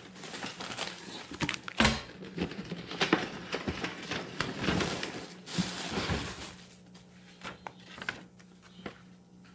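Rustling and crinkling of a cardboard shipping box and plastic packaging being handled and unpacked, with a sharp knock about two seconds in. It quietens after about six and a half seconds to a few light clicks of paper handling.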